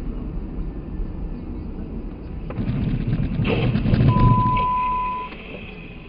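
Vehicle noise from inside a moving car: a steady low rumble, then a louder rush with a few knocks from about two and a half seconds in. A single steady electronic beep sounds for about a second near the loudest point.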